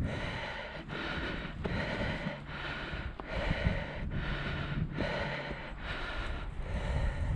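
A person breathing hard in quick, even breaths, as from the exertion of climbing, with wind rumbling on the microphone.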